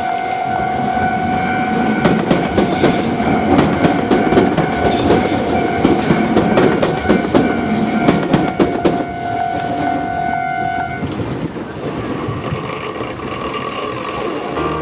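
Iyo Railway electric train passing over a level crossing, its wheels clattering over the rails, loudest through the middle. Throughout, the crossing's warning alarm sounds as a steady tone and stops about eleven seconds in, once the train has cleared.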